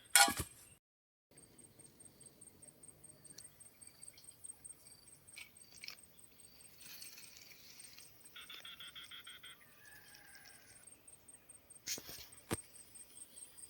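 Insects trilling in a fast, even, high-pitched pulse. A brief loud noise comes right at the start, another pulsed call lasts about a second and a half partway through, and two sharp clicks come near the end.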